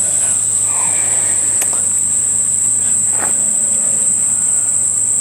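Insects chirring outdoors, a steady high-pitched drone that does not let up, with a couple of faint clicks.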